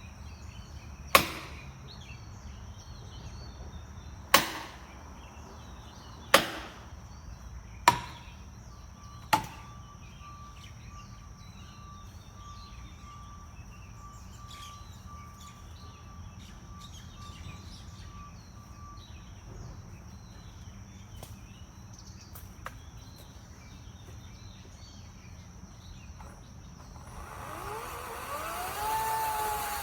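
Five sharp single strikes, one to two seconds apart, each with a short ring. Near the end a motor starts and spins up, its whine rising in pitch.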